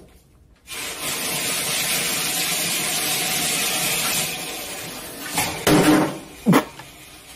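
Water gushing hard from a bathtub faucet into the tub, starting just under a second in and easing off after about four seconds. Near the end come a few short, louder vocal cries, one falling sharply in pitch.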